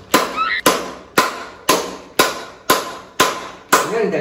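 Wooden rolling pin pounding a lump wrapped in a plastic bag: sharp knocks in a steady rhythm, about two a second.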